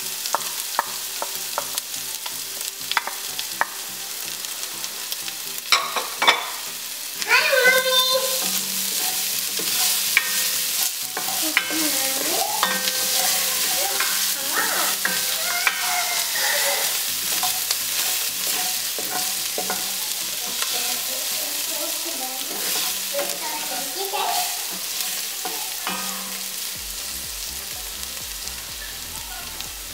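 Garlic and ginger sizzling in hot oil in an enamelled pot while a wooden spoon stirs and scrapes them around. There are several sharp taps in the first few seconds.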